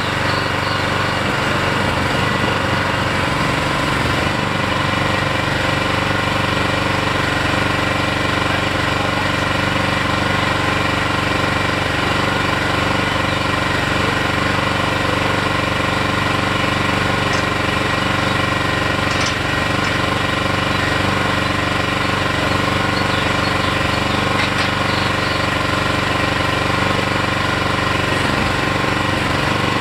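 Small engine of a Harbor Freight mini excavator running steadily at a constant speed.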